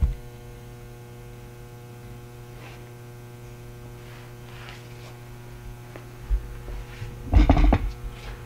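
Steady electrical mains hum with a stack of evenly spaced overtones. There is a short thump at the start and a brief louder bump near the end.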